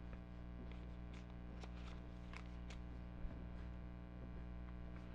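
Faint rustles and light scrapes of a trading card being slid into a plastic binder page pocket, over a steady low electrical hum.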